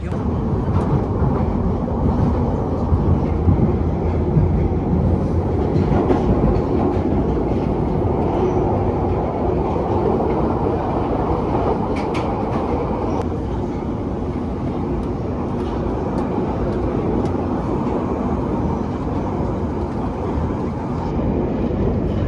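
London Underground tube train running at speed, heard from inside the carriage: a steady, loud rumble of wheels and track with a few scattered clicks.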